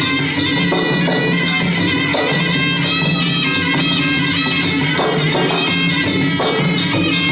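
Traditional Khmer boxing music: a nasal reed oboe (sralai) plays a continuous, wavering melody over a steady beat of drums and small hand cymbals.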